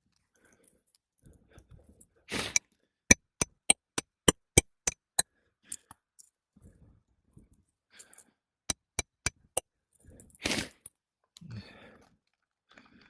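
Hammer strikes driving roofing nails into a replacement asphalt shingle: a quick run of eight sharp blows, a couple of single taps, then a run of four. Each run is preceded by a brief scraping rustle of the shingle.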